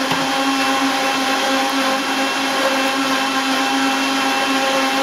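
Countertop blender running steadily, blending frozen fruit and water into a smoothie: a loud, even motor whine.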